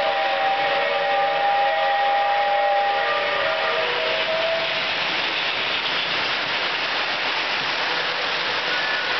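Lionel toy train whistle blowing a steady chord of several notes for about four and a half seconds, then stopping, over the steady rushing noise of the model trains running on the track.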